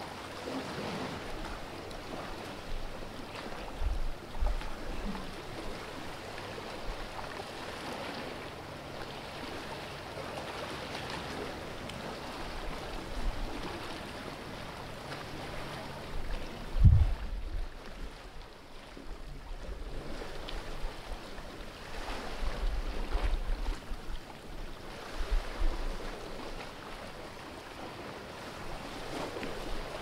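Calm sea water washing and lapping against the rocks of a narrow cliff inlet, a steady hiss that swells and eases gently. A few low thumps come through, the loudest about halfway through.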